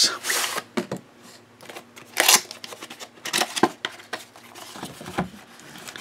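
Cardboard box being opened by hand: the lid sliding and rubbing against the box, heard as several short scrapes and rustles of card, the loudest at the start and about two seconds in.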